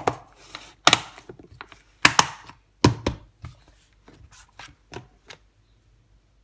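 Hands handling plastic food tubs and a tortilla wrap on a kitchen worktop: a series of sharp knocks and clicks as the tubs are picked up and set down. They thin out and stop after about five seconds.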